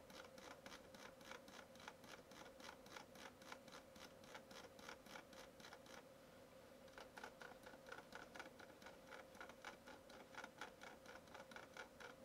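Faint rapid clicking of a computer mouse scroll wheel turning notch by notch, about five clicks a second, pausing briefly in the middle, over a faint steady hum.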